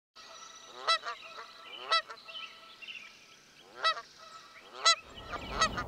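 Geese honking: about five loud, nasal calls at uneven spacing, with fainter calls between them.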